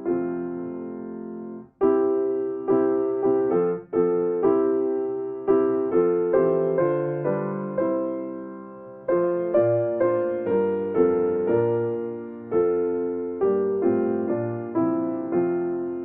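Slow solo piano music: chords struck one after another, each left to fade, with two short breaks in the first four seconds.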